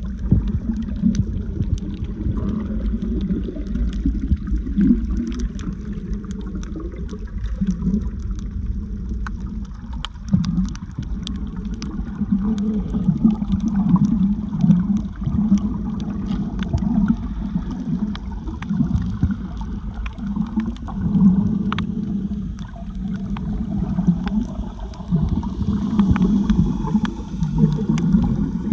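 Muffled underwater water noise while snorkeling: a steady low sloshing and gurgling, with many faint, scattered sharp clicks.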